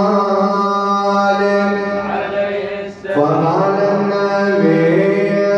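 A man chanting a mawlid recitation in Arabic into a microphone, unaccompanied: long, ornamented held notes, a short breath about three seconds in, then a new phrase, over a steady low note.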